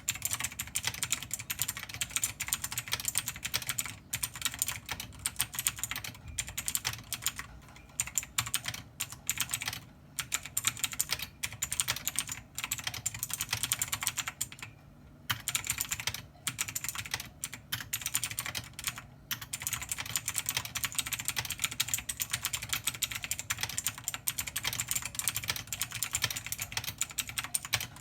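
Continuous typing on a computer keyboard: a dense run of key clicks with a few short pauses, the longest about halfway through.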